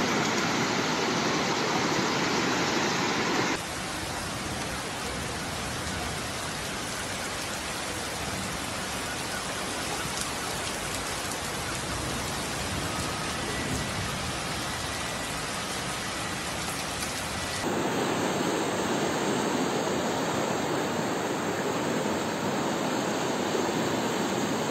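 Steady rushing noise of floodwater and rain, with no distinct events. It changes abruptly twice, about 3.5 s and 18 s in, where separate recordings are cut together.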